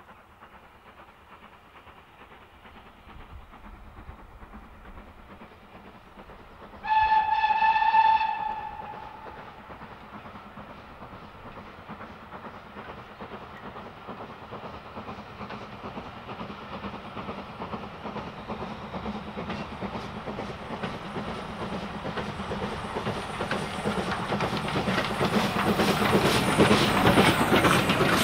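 Steam locomotive, SR U class 2-6-0 No. 31806, approaching and passing with its train: one whistle blast of about a second about seven seconds in, then the train's noise growing steadily louder, with the carriage wheels clattering over rail joints near the end.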